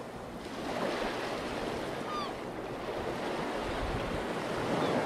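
Sea surf washing with wind, a steady rushing noise, with a few short high chirps about two seconds in.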